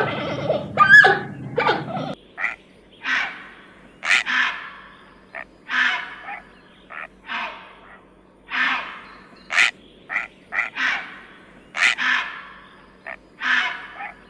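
An animal calling: for the first two seconds gliding, pitched calls over a dense background noise, then, after an abrupt change, a run of harsh, rasping calls about once a second, short sharp ones alternating with longer grating ones.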